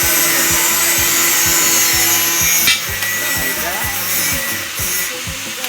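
Harsh, steady grinding noise of a power tool working on metal, cutting off abruptly about two and a half seconds in, over background music with a steady thumping beat.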